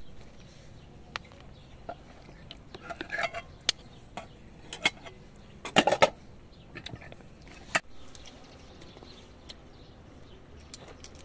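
Scattered clinks and knocks of kitchen utensils against dishes, loudest in a quick cluster of several strikes about six seconds in, with single sharp taps before and after.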